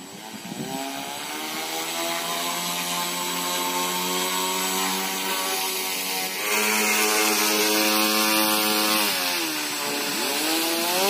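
Brushless motors with propellers on a wire-riding model 'air train' whining under radio-control throttle. The pitch rises over the first couple of seconds, steps up and gets louder about six and a half seconds in, and drops back after about nine seconds. It then dips and climbs again near the end.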